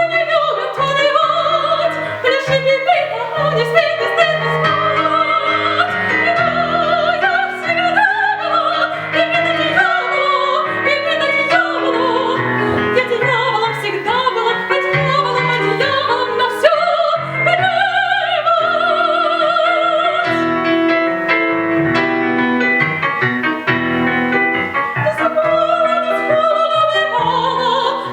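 A woman singing an operetta song in a classical, operatic voice with strong vibrato, accompanied by piano.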